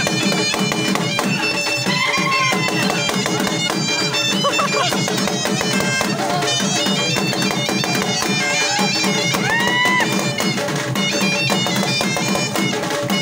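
Traditional folk dance music led by a reedy wind instrument playing a busy stepping melody over a steady low accompaniment.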